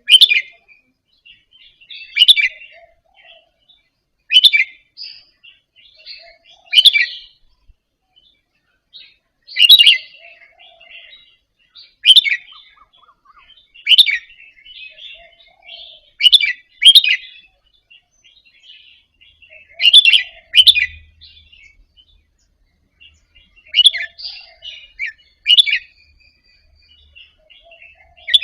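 Red-whiskered bulbul singing short, loud phrases about every two seconds, several given in quick pairs: a bird practising the doubled phrase that keepers call a "double".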